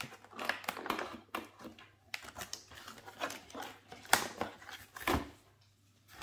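Packaging being handled: cardboard and plastic crinkling and clicking, with two sharper knocks about four and five seconds in.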